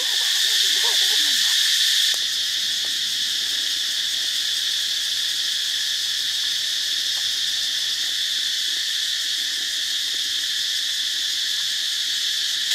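Steady high-pitched insect chorus of crickets or cicadas, dropping slightly in level about two seconds in, with a few faint calling glides in the first second or so.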